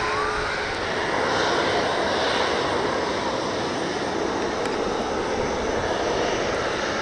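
Boeing 737-800's CFM56-7B jet engines running at low ground power as the airliner moves on the apron, a steady rushing engine noise that swells slightly a second or two in.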